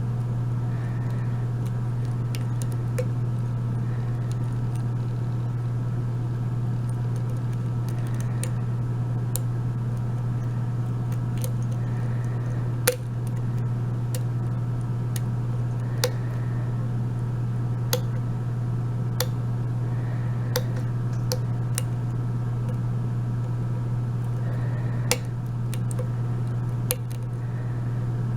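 A steady low hum, with small sharp clicks every second or two, irregularly spaced, as a lock pick works the pin stacks of an Abus 72/40 padlock during single-pin picking.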